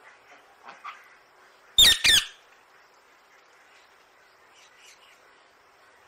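Caged green parakeet giving two loud, harsh squawks in quick succession about two seconds in, with a few faint short chirps before and after.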